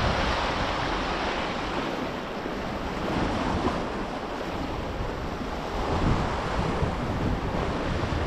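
Sea waves washing against the rocks, with wind on the microphone; the wash swells a little about three seconds in and again about six seconds in.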